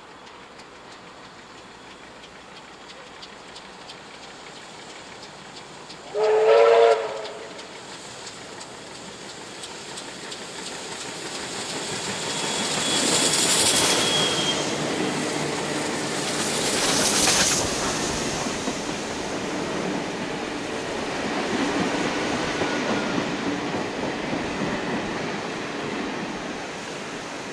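Two steam locomotives, NSW 59 class 5917 and Victorian R class R766, running side by side on parallel tracks. A steam whistle gives one short blast about six seconds in. The trains then grow louder as they approach, with two loud peaks as the locomotives pass, followed by the steady rumble of their carriages rolling by.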